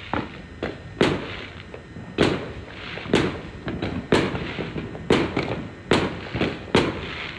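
Fireworks going off: an uneven run of sharp bangs, about a dozen, one or two a second, with a haze of other bursts between them.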